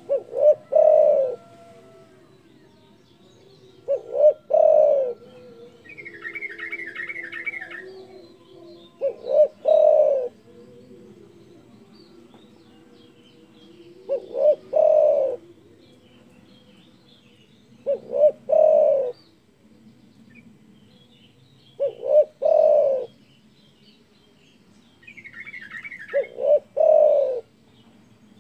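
Spotted dove (derkuku) cooing: a loud call of two short notes followed by a longer coo, repeated seven times about every four seconds. A small bird gives a rapid higher trill twice between the coos.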